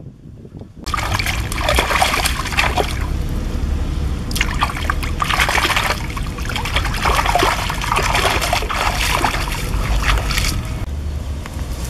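Water splashing and trickling in a shallow stream as a person wades and works in it with his hands. It starts abruptly about a second in, comes in uneven surges and eases off near the end.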